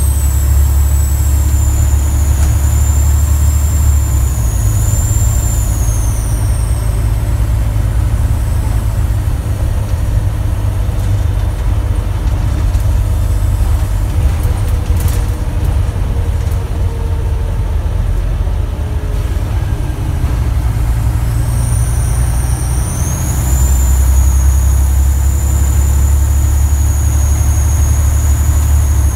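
Scania N94UD bus's 9-litre DC9 inline-six diesel pulling under load, heard from inside the lower deck, with a loud high-pitched whistle from a leaking turbo. The whistle glides down and fades about six seconds in as the engine eases off, then rises again about three-quarters of the way through as the bus pulls away.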